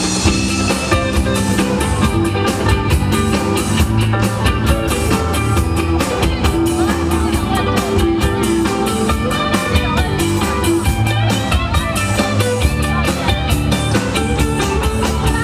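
Live band playing an instrumental break with a steady drum beat and no singing.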